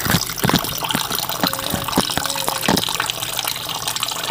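Water running from a tap while hands are washed and rubbed together under it, with irregular splashing.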